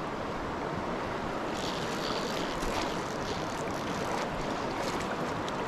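Steady rush of flowing stream water around a wading angler.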